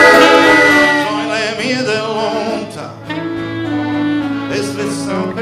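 Live folk band playing: a held sung note ends about a second in, then an instrumental passage of strummed acoustic guitars over sustained accordion chords.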